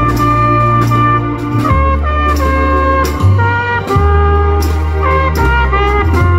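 Live trumpet playing a slow melody of long held notes over a bass line and a steady drum-kit beat.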